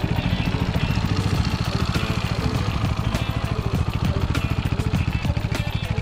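Brixton Glanville (Felsberg) 250's air-cooled single-cylinder four-stroke idling on its stock exhaust: a steady, even beat of exhaust pulses with some light mechanical clatter over it.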